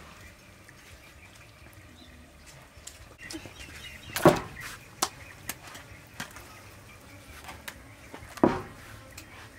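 Raw beef intestine dropped and handled on a woven bamboo tray: two loud thumps about four seconds apart, with lighter knocks of handling in between.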